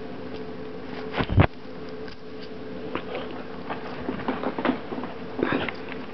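A loud thump about a second in as a baby's hand slaps the plastic high-chair tray, followed by scattered lighter taps and knocks, over a steady low hum.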